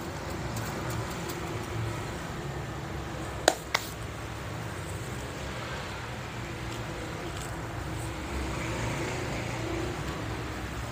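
Steady low background hum, with two sharp clicks about three and a half seconds in.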